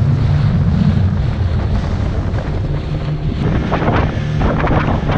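Small motorboat's engine running steadily at speed, with wind buffeting the microphone and water rushing past the hull. From about three and a half seconds in, irregular splashing as the hull slaps through the waves.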